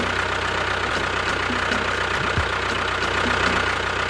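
Motor of a homemade mini tractor running steadily, with a constant hum and a fast, regular ticking.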